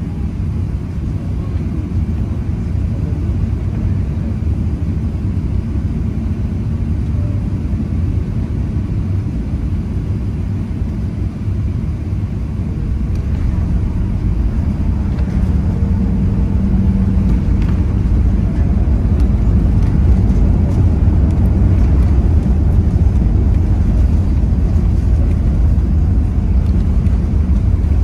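Cabin noise of an Airbus A380 landing: a steady low rumble on final approach, growing louder from about halfway through as the airliner touches down and rolls out on the runway.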